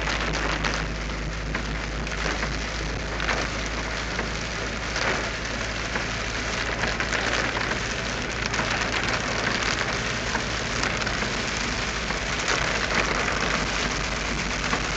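Heavy rain falling on a car's roof and windshield, heard from inside the cabin: a steady hiss with a few brief louder spatters.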